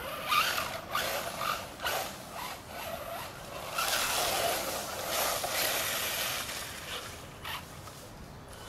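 Radio-controlled buggy driving on dirt, in short throttle bursts with its tyres churning the dirt, the longest stretch starting about four seconds in. A short sharp knock comes near the end.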